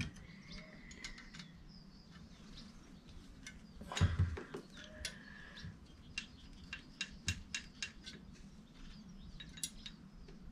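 Whitworth spanner working on nuts of a Coventry Climax engine: a run of small metallic clicks and taps, with a louder clunk about four seconds in.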